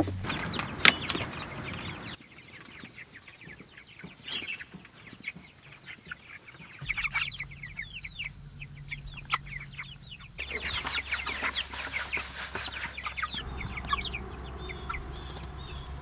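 Chickens clucking and peeping in many short calls, busiest about two thirds of the way through.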